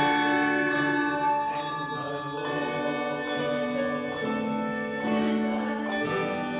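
Handbell choir playing a piece: bells struck one after another, roughly a new note or chord each second, their tones ringing on and overlapping.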